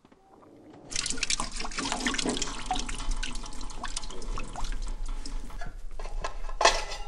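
Water trickling and dripping, with many small splashes, starting about a second in; a brief louder splash comes near the end.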